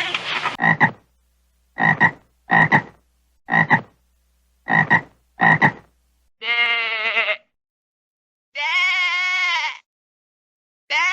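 Seven short, clipped animal calls, then three longer, wavering bleats of about a second each.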